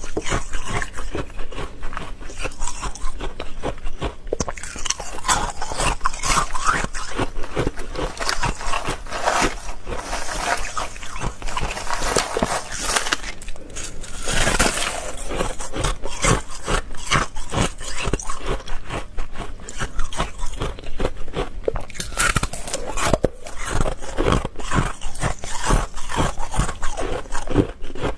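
Hard frozen ice flakes being bitten and crunched: a dense, continuous run of crisp cracks and crackles.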